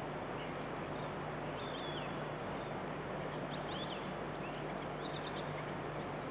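Steady outdoor background hiss with a constant low hum, and faint bird chirps a few times.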